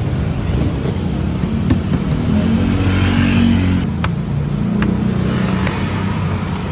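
A motor vehicle engine running close by, rising and falling in pitch and loudest about three seconds in, with three sharp taps.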